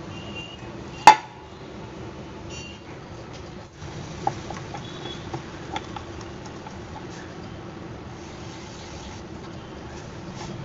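A single sharp knock about a second in, then a wooden rolling pin rolling out spinach chapati dough on a wooden board, making a steady soft rubbing with a few light taps.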